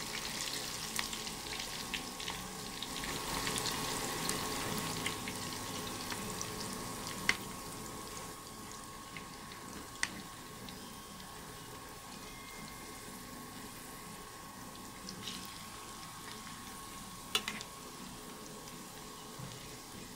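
Chicken popcorn pieces and onion deep-frying in bubbling oil in a pan: a steady sizzle that grows quieter over the first several seconds, with a few sharp clicks and a faint steady whine.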